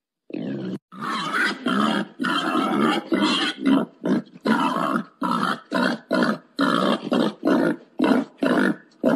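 Wild boar grunting in a fast, regular series of rough grunts, about two a second, starting a moment in. Presented as the boar's mating call, the kind played to lure boar.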